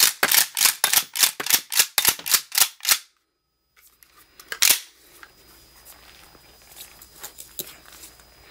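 Mossberg 590 Shockwave pump shotgun being handled: a fast run of sharp metallic clicks, about three to four a second, breaks off after about three seconds. About a second and a half later comes one loud clack of the action, then faint scattered handling clicks.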